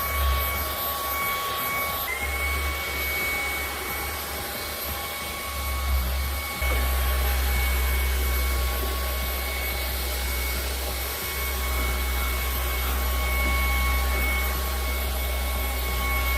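KOOPOWER cordless stick vacuum cleaner running with a steady high motor whine; the whine dips briefly and climbs back about two seconds in. A low rumble under the whine grows louder about six and a half seconds in.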